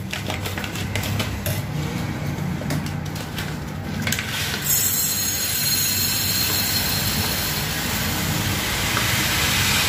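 Plastic packet rustling as it is handled, then about four and a half seconds in a steady rushing hiss begins as sago (tapioca) pearls pour from the packet into a glass jar.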